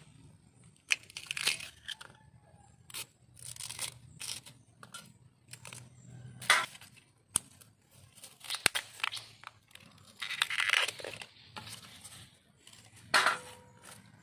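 Fresh bamboo shoots being slit with a knife and stripped of their husks by hand: repeated irregular tearing and crunching strokes, with a few sharp clicks.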